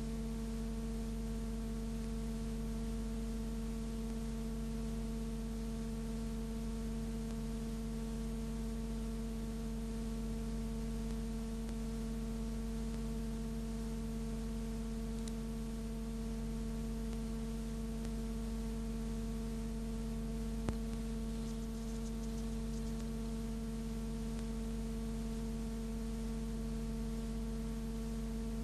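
Steady electrical hum with hiss, unchanging, and one short click about twenty seconds in; no sound of the trams themselves.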